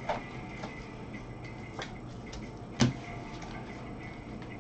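Baseball cards being handled and set down on a table: a few short, light clicks and taps, the loudest just before three seconds in, over a steady background hum.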